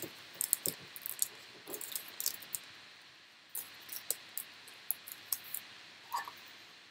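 Trading cards and a clear plastic card holder being handled: scattered light clicks and rustles of card stock and plastic as a memorabilia card is slid into the holder.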